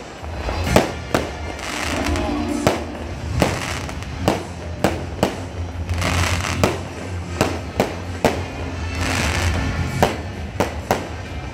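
Aerial fireworks going off in a quick, irregular string of sharp bangs and crackles, about two a second. These are the last volleys of a fireworks show.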